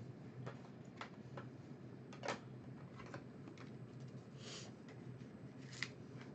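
Trading cards being handled by hand: faint scattered clicks and taps of cards against each other and the table, a slightly louder click about two seconds in, and a brief soft rustle later on.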